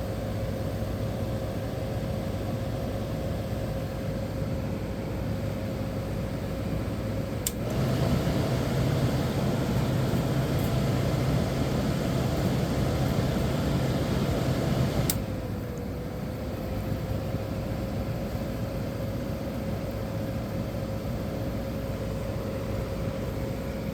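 Disassembled 1985 White Westinghouse window air conditioner running, its Matsushita rotary compressor and fan giving a steady hum with a held tone; it is cooling hard, the coil freezing over. A click about 7 seconds in makes it run louder and higher, and another click about halfway through brings it back down, the tone gliding back to where it was.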